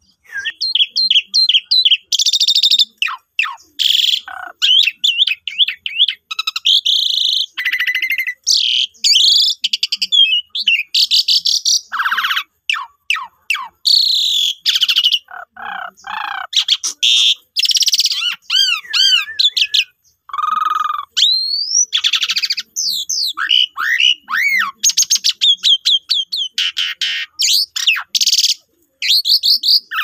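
Asian pied starling (jalak suren) singing its full, varied song without let-up: whistles, rapid trills, harsh chatter and sliding notes strung together with only short pauses. This is the vigorous 'gacor full isian' singing of a bird in top form.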